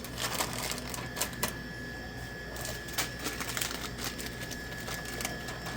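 Scattered light clicks and taps as snack packets are pushed into the spiral coils of a pulled-out vending machine tray, over a faint steady hum, with a faint steady high tone for a few seconds in the middle.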